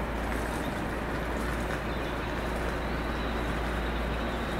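Class 805 bi-mode passenger train running slowly past, a steady low rumble.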